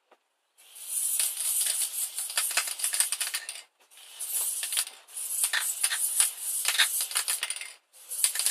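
Aerosol spray-paint can spraying onto a brick wall in long hissing bursts with a fine crackle, stopping briefly twice between strokes.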